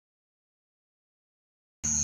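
Dead silence, then near the end a steady high-pitched insect trill, typical of night crickets, cuts in suddenly over a low hum.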